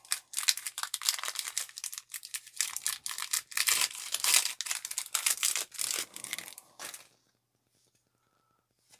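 Foil wrapper of a Pokémon trading card booster pack being torn open and pulled apart by hand: rapid crinkling and tearing that stops about seven seconds in.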